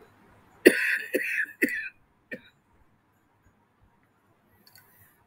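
A woman coughing: three quick, loud coughs starting less than a second in, then a smaller fourth one.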